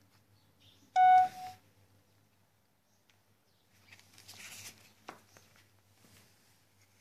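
Handling sounds: a short high squeak about a second in, then soft rustling and a light click as rubber-gloved hands work in a glass jar of soil and set something on its lid.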